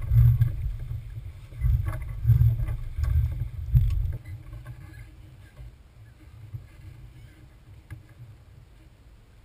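Wind buffeting the camera microphone aboard a Smaragd-class sailboat under sail, a gusting low rumble with a few sharp knocks. About four seconds in it drops to a faint, even background.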